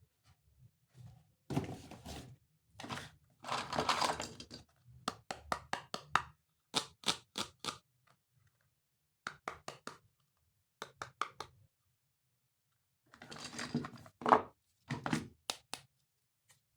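Toy train and its packaging being handled: bursts of rustling and short runs of quick sharp clicks and knocks, with brief pauses between them.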